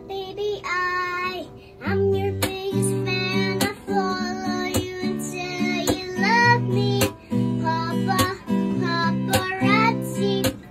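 Music: strummed acoustic guitar with a high singing voice.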